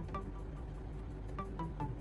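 Background music: a light melody of short, separate plucked notes at changing pitches over a steady low accompaniment.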